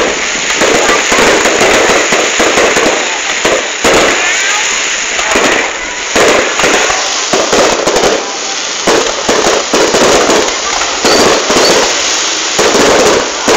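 Fireworks and firecrackers going off in a dense, continuous barrage: many overlapping bangs and crackles with no pause.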